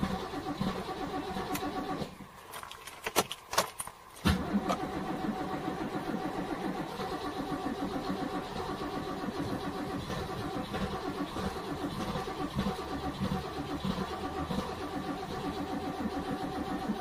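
A NASCAR stock car V8 starts: after a short quiet gap with a few sharp clicks, the engine fires about four seconds in and settles into a steady, pulsing idle. An earlier engine sound cuts off about two seconds in.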